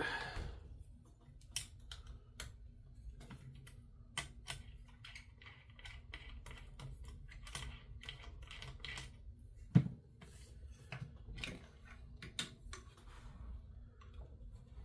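Irregular small clicks and taps of tools and metal parts being handled while the stock is removed from a PCP air rifle, with one louder knock about ten seconds in.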